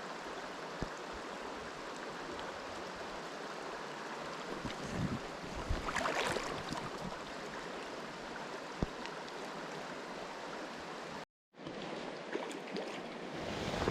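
Trout stream running steadily over its riffles, with a brief louder swell of water about six seconds in. The sound cuts out for a moment near the end, then the stream carries on.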